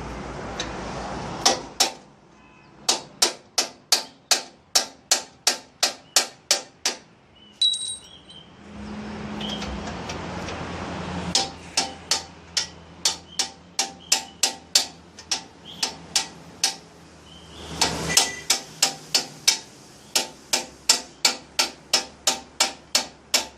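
Hammer tapping the front wheel axle of a Royal Enfield Classic 350 to drive it out. The sharp metallic taps come in three runs of about two to three a second, with short pauses between.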